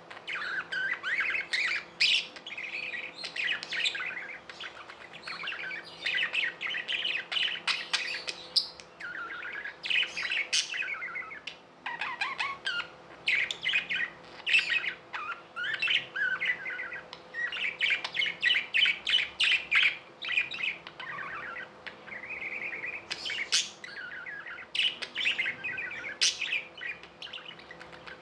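Budgerigars warbling and chattering in fast runs of chirps and sharp clicks, with only brief pauses.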